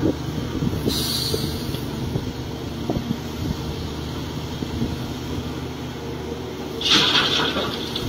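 Caterpillar 336 hydraulic excavator's diesel engine running steadily under load while it digs and swings dirt to a dump truck. A short hiss comes about a second in, and a louder one near the end as the bucket comes over the truck bed.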